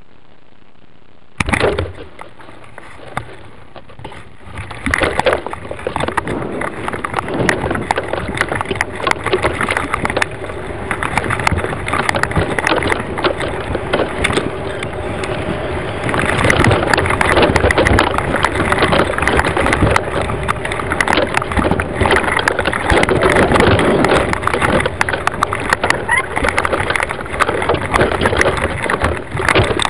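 Wind rushing and buffeting over a high-altitude balloon payload's microphone, with constant rattling and knocking of the payload, as it tumbles down after the balloon bursts. The noise starts suddenly about a second and a half in and grows louder, loudest in the second half.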